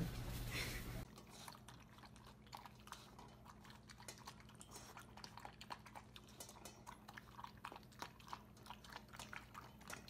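After a second of low hum, a cat chews food from a metal bowl: many small, irregular crunches, faint and close together.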